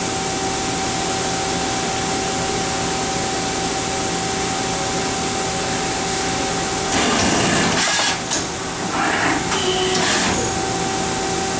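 Mazak Quick Turn Nexus 350 CNC lathe running with a steady hum and two constant whining tones. Louder surges of hiss come twice, about seven and about nine and a half seconds in.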